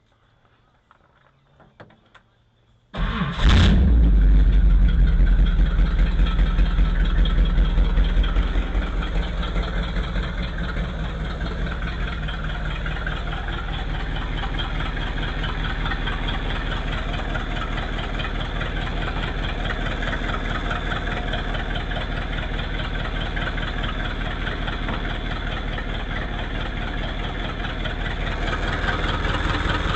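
1959 Ford Thunderbird V8 catching on the starter about three seconds in and running, loud for about five seconds, then settling into a steady idle.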